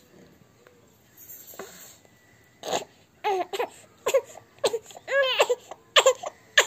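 Infant crying in repeated short wails that rise and fall, starting nearly three seconds in, as its earlobe is pinched for an ear piercing.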